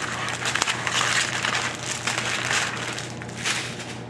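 Small plastic bags of diamond-painting drills crinkling and rustling in several bursts as they are handled and laid down.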